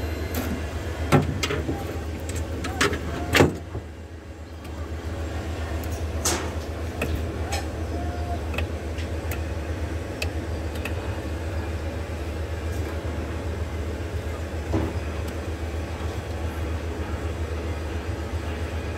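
Small screwdriver clicking and tapping against the switch-setting discs of a transformer winding temperature indicator: several sharp clicks in the first few seconds, a few fainter ones later, over a steady low hum.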